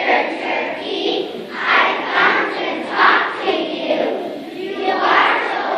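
A class of young children singing together as a choir, many voices in unison without accompaniment standing out.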